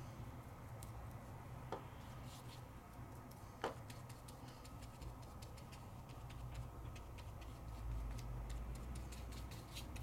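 Faint scattered light ticks and taps over a low steady hum, with two sharper taps about two and four seconds in: small watercolour painting tools being handled and tapped during painting.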